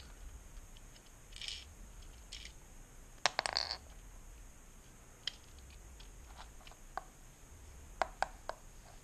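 Small plastic clicks and rattles of Lego pieces being handled and set down, with a cluster of clicks about three and a half seconds in and a few sharp clicks near the end.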